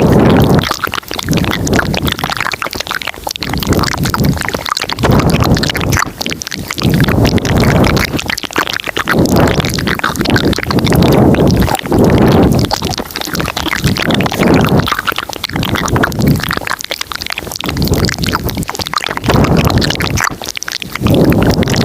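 Layered ASMR mouth sounds close to the microphone: a dense run of wet clicks and smacks over low, breathy swells that come and go every one to two seconds.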